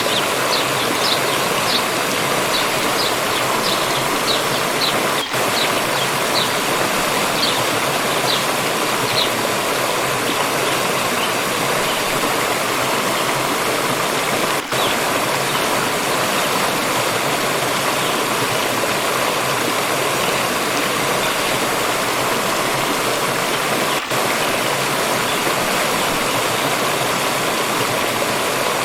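Water stream rushing steadily over rocks. A bird gives a run of short high chirps, one or two a second, through the first ten seconds or so. The rush breaks off three times for an instant.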